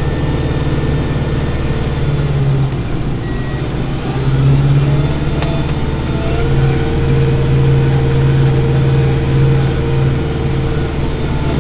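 Kubota tractor's diesel engine running steadily under load, heard from inside the cab, with a steady whine joining about halfway through.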